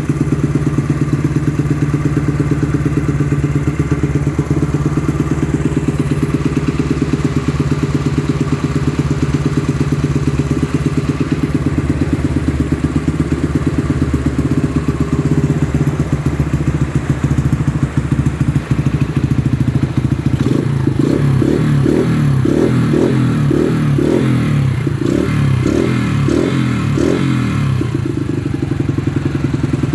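Yamaha XTZ 125's single-cylinder four-stroke engine idling through its fitted aftermarket exhaust pipe, a slightly deeper note than stock. From about twenty seconds in the engine note pulses in a quick rhythmic run for several seconds, then settles back to a steady idle.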